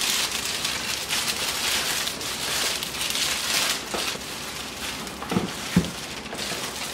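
Plastic wrapping and bubble wrap crinkling and rustling as a wrapped item is handled and lifted out of its cardboard box.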